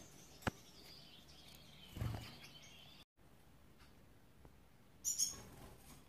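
A caged finch gives a few short, high-pitched chirps about five seconds in. Earlier there is a single sharp click about half a second in and a dull thump about two seconds in.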